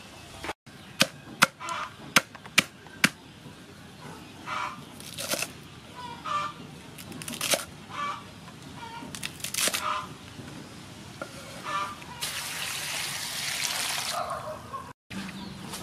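A cleaver chopping water spinach on a wooden chopping board: about five sharp strikes in quick succession about a second in. Short calls of poultry are heard on and off. Near the end, water splashes as the cut stems are washed in a bowl.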